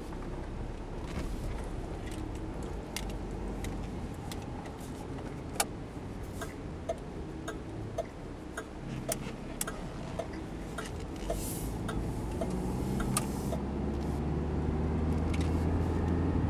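1993 Chevy Corsica heard from inside the cabin while driving and speeding up: steady engine and road noise that grows louder, with the engine note rising over the last few seconds. A light, regular ticking, about two or three clicks a second, runs through the middle.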